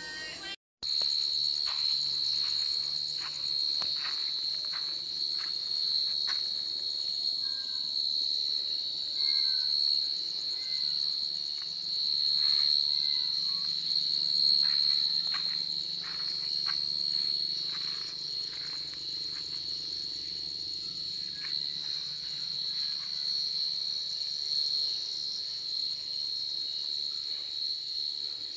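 Night insects, such as crickets, calling in a steady high-pitched drone, with scattered faint ticks and a few short chirps.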